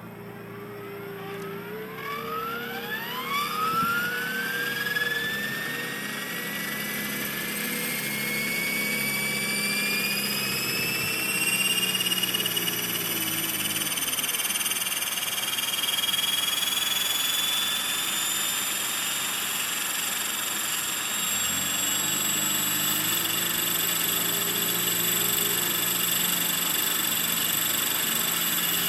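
Align T-Rex 500 ESP electric RC helicopter spooling up: a whine rises steadily in pitch over the first several seconds and levels off at hover speed, over a lower hum from the rotor that drops away about 14 seconds in and comes back about 21 seconds in. The owner calls it a bad vibration and suspects the tail or the ESC.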